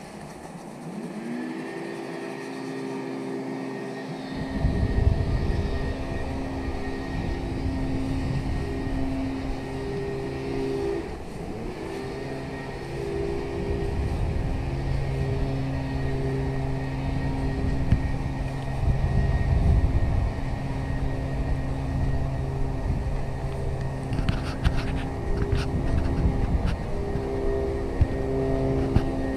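Steady motor whine at several pitches that rises about a second in, then dips and recovers around eleven seconds in, over a low rumble of wind on the microphone; a few quick clicks near the end.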